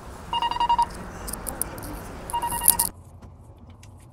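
Short bursts of rapid electronic beeping, roughly every two seconds, with light metallic jingling from a dog's leash and harness tag. About three seconds in, it all cuts off to quiet room tone.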